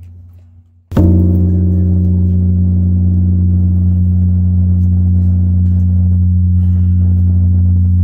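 Large Buddhist temple bell struck once about a second in, then a low, steady ringing hum with layered overtones.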